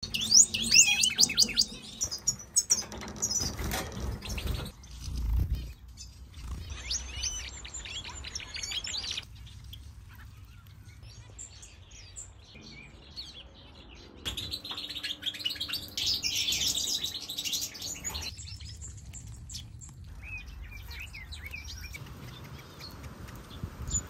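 European goldfinches twittering and chirping in bursts of fast, high-pitched notes that come and go. There are a few low thumps about four to five seconds in.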